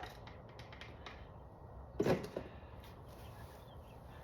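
A few faint clicks, then a sharp knock about two seconds in followed by a smaller one, over faint background hiss: things being handled and set down.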